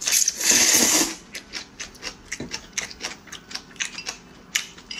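Corn noodles slurped up loudly for about a second, then close-up wet chewing clicks, two or three a second.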